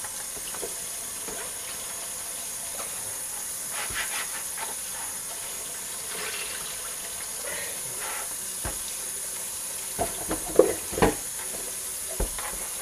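Tap water running steadily into a bowl of whole white bass as they are rinsed, with a few knocks and clunks of the bowl about ten to eleven seconds in.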